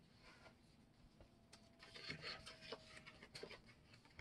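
Faint rustling and light taps of paper and cardstock sheets being sorted through, a little louder about two seconds in.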